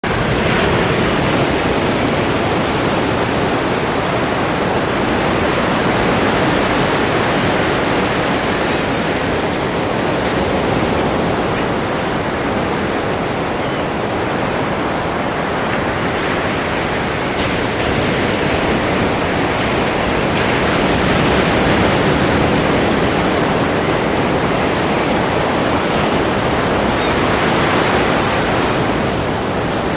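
Ocean surf: a continuous wash of breaking waves that swells and eases gently every few seconds.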